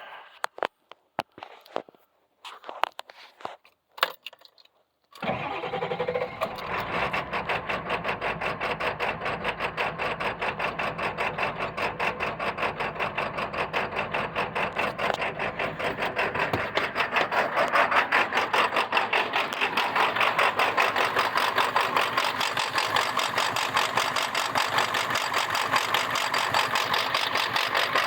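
A few scattered clicks, then about five seconds in the 1999 Ford F450's 7.3 L Power Stroke V8 turbo-diesel starts and settles into a rough, pulsing idle, the rough idle the owner can't explain.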